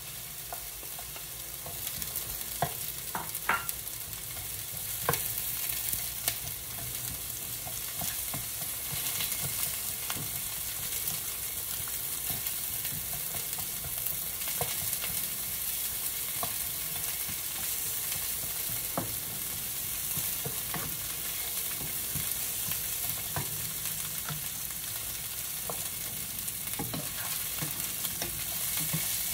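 Onion and garlic sautéing in hot oil: a steady sizzle with scattered taps of a cooking utensil against the pan as they are stirred, a few louder ones in the first few seconds.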